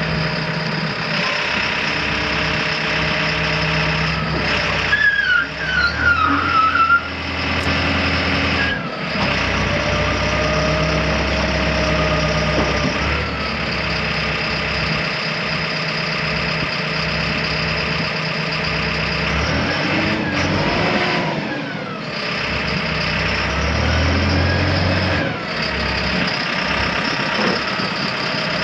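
Genie GTH telehandler's diesel engine running steadily, its pitch rising and falling as the boom is worked and the machine drives off. A brief wavering high squeal comes about five seconds in.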